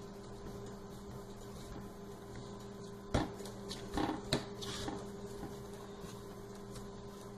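Hands pressing and patting layered balushahi dough on a wooden chopping board, with three short soft knocks a little after three and four seconds in, over a steady background hum.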